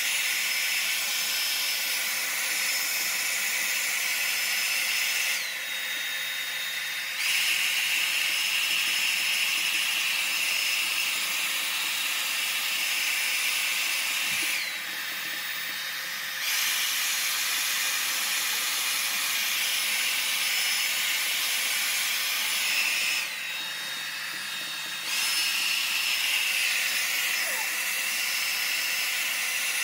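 Handheld hair dryer blowing steadily with a high motor whine over the rush of air. Three times the whine slides down in pitch and the sound drops a little for about two seconds before coming back up.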